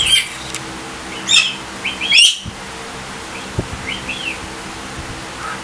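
Galahs (rose-breasted cockatoos) giving short, high, screechy calls: a few in quick succession, the loudest a little over two seconds in, then two softer rising-and-falling calls about four seconds in.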